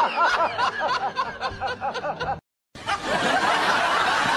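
Rapid, high-pitched laughter, a continuous run of quick 'ha's, that cuts off abruptly about two and a half seconds in. After a brief silence, a steady noisy background with a faint voice takes over.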